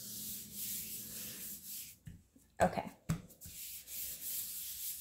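Nitrile-gloved hand rubbing across fondant pressed into a silicone mold, a dry swishing that comes and goes in strokes. About halfway through there is a short squeak followed by a soft knock.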